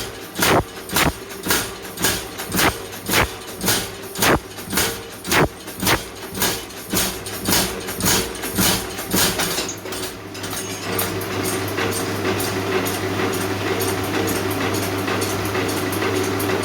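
Blacksmith's hammer blows on wrought iron, struck evenly about two a second over a steady machine hum. The blows stop about ten seconds in, leaving the hum with faint fast ticking.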